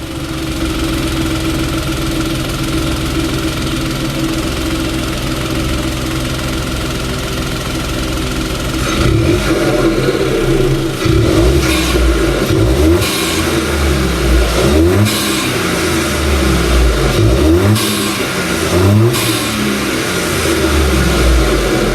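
Hyundai HB20's 1.0 turbo three-cylinder engine, its air filter box open, idling steadily, then revved in a series of short throttle blips every second or two from about nine seconds in.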